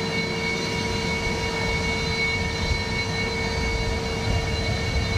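Sukhoi Su-30MKI's twin Saturn AL-31FP turbofans running at ground idle: a steady jet whine with several high whistling tones over a low rumble.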